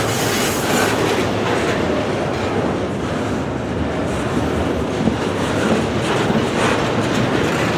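Steel wheels of a long freight train's cars rolling past on the rails, a steady noise at speed.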